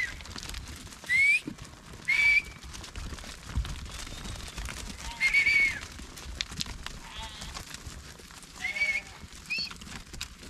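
A flock of sheep on the move along a stony trail: hooves scuffing and clicking on rock, with about five short, high, rising whistle-like calls.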